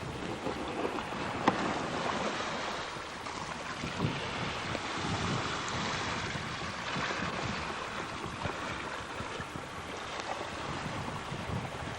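Wind buffeting the microphone over a steady rush of water and waves, with one sharp click about a second and a half in.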